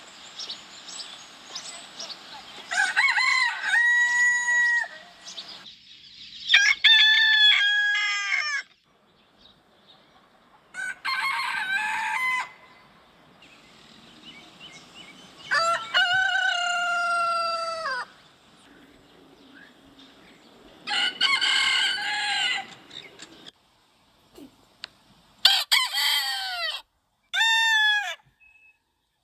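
Roosters crowing repeatedly, about six cock-a-doodle-doo calls a few seconds apart, each falling in pitch at its end.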